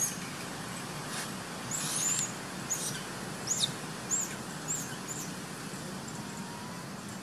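Small bird chirping: a series of short, high-pitched, arching notes, about one every half second, that stop about five seconds in. Under them runs a steady background hiss.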